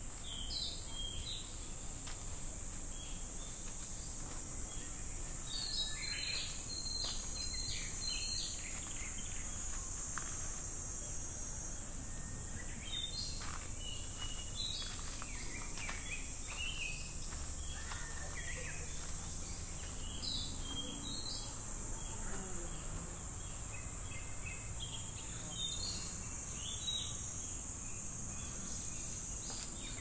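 Cicadas droning in a steady, high-pitched chorus. Short high notes ring out above it now and then in small clusters.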